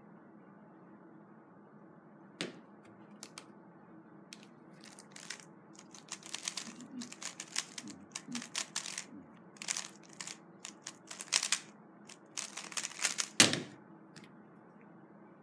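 3x3 speedcube being solved fast by hand: quick bursts of clicking and clacking as the layers are turned, going on for about nine seconds after a single click near the start. It ends with one loud sharp thump as the cube is put down and the timer stopped.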